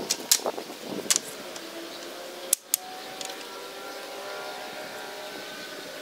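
Wooden stickers knocking together as they are handled and sorted, several sharp clacks over the first few seconds. After them a faint steady mechanical hum is left.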